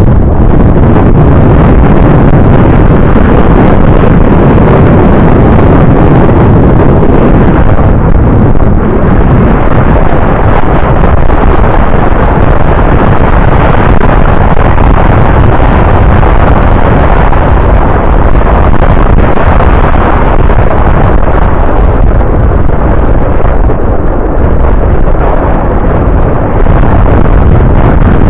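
Loud, steady wind buffeting on the microphone of a camera carried on a moving bicycle, a rushing roar that runs on without a break.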